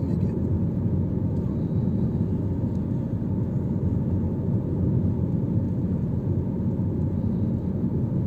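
Steady low rumble of a moving bus, heard from inside the passenger cabin.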